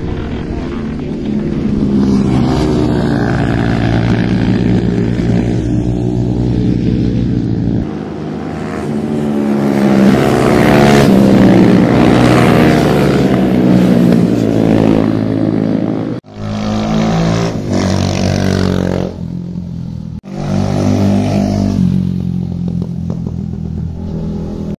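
Racing motorcycles (TVS Apache 200 race bikes) running hard, their engine pitch rising and falling, with sudden breaks about 16 and 20 seconds in.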